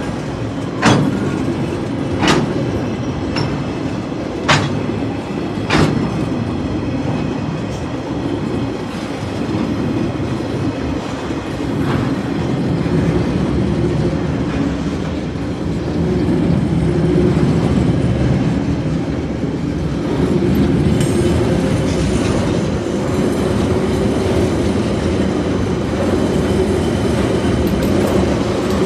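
Freight train wagons rolling past at close range: a steady rumble of steel wheels on rail, with several sharp clanks in the first six seconds. The rumble grows louder from about sixteen seconds in, as loaded container wagons pass.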